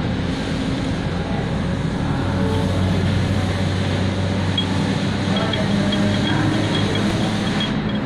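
A steady engine running noise with a low hum, like a vehicle engine.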